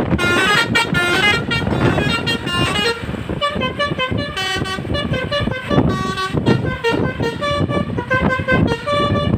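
Basuri multi-tone 'telolet' horn on a large road vehicle playing a quick melody of short notes that step up and down in pitch, over engine and traffic noise.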